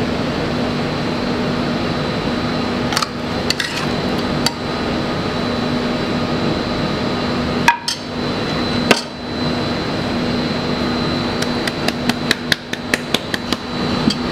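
Sharp taps and knocks of a metal spoon and ceramic pasta bowl as risotto is plated: a few scattered taps, two louder knocks around the middle, and a quick run of taps near the end, over a steady mechanical hum.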